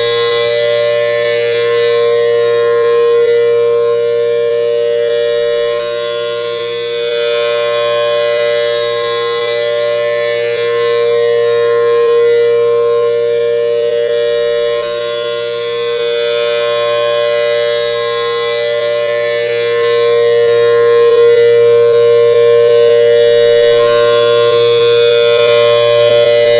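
Federal Signal Thunderbolt outdoor tornado siren sounding the steady alert signal: a loud, unbroken tone of two pitches together that never rises or falls in pitch, swelling and fading in loudness every few seconds as the siren head rotates.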